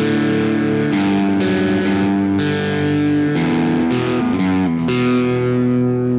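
Epiphone Les Paul SL electric guitar played through an amp with both pickups selected: strummed chords that change about once a second, each left ringing.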